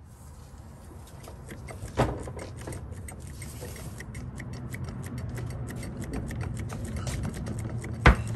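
Dodge Durango on the move: a steady low rumble that grows louder, with light ticking, a sharp clunk about two seconds in and another near the end. The clunks come from a worn driveshaft U-joint.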